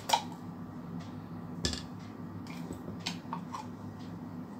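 Hard plastic clicks and knocks as a small satellite speaker's plastic cabinet is handled and pulled open: a sharp click at the start, a heavier knock with a thump about a second and a half in, and a few small clicks near the end, over a steady low hum.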